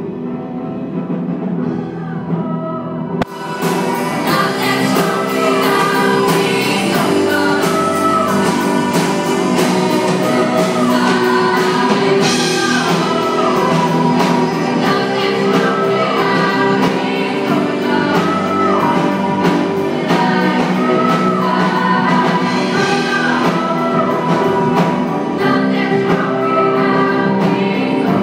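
Live band of keyboard, cello, guitars and drums with singers performing a song, recorded with poor sound. It starts quietly, then the full band and vocals come in about three seconds in, with a steady drum beat under the sung melody.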